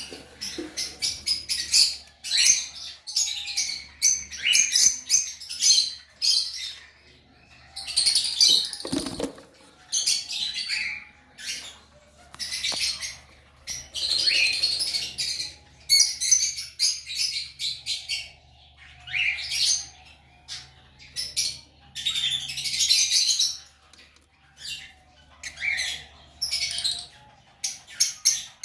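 Fischer's lovebird chicks chirping: rapid runs of short, high-pitched cheeps, coming in clusters with brief pauses in between.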